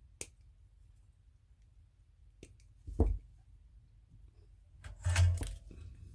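Handling noises at a workbench: a sharp click, a couple of knocks about three seconds in, and a louder rustle of small parts or tools being moved near the end.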